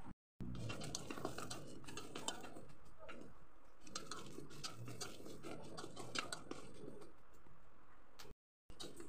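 Dried red chillies, shallots and garlic cloves dropped and shuffled by hand, making irregular light taps and dry rustling. The sound cuts out briefly twice.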